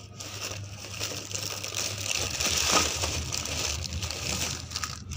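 Thin plastic bag rustling and crinkling as it is handled, a dense crackle that grows loudest about halfway through.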